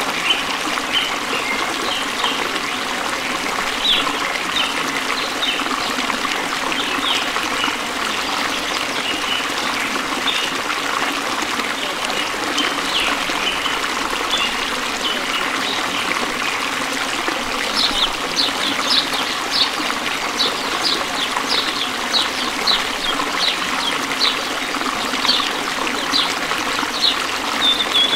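Steady trickling and babbling of running stream water, with short high chirps scattered over it that come thick and fast in a run about two-thirds of the way in.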